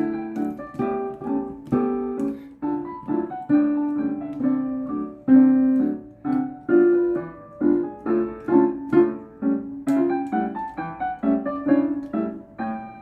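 Portable digital piano played by hand: a slow melody over chords, each note struck and then fading.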